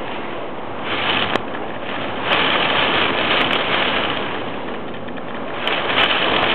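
Typhoon wind rushing in a steady roar of noise that swells in gusts about a second in, around two and a half seconds in, and near the end, with a few faint sharp clicks.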